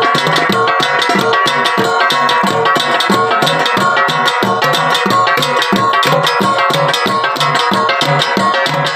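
Ensemble of Kankanaey gangsa, flat hand-held gongs, played in a fast, even interlocking rhythm, with ringing metallic tones and repeating low beats underneath.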